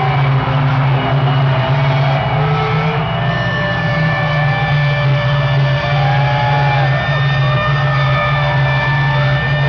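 Live metal band heard from the crowd: a loud low rumble pulsing evenly, with steady high tones and rising-and-falling crowd shouts over it.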